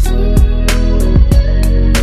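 Background music with a steady beat, about three hits a second over held bass notes.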